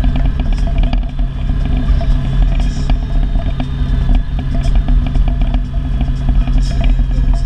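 Can-Am Maverick X MR side-by-side's engine running steadily at low speed, with frequent clicks and clatter of creek gravel and rocks under the tyres and splashing as it drives through shallow water.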